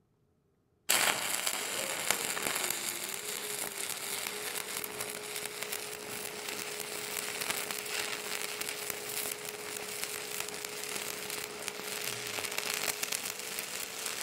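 Stick welding arc from a 1/8-inch 7018 rod at 130 amps, striking suddenly about a second in and then crackling steadily as the bead is run, with a steady tone underneath.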